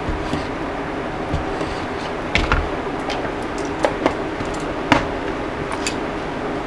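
A few sharp clicks and taps of dishes and utensils being handled while food is set out, over a steady mechanical hum in the room.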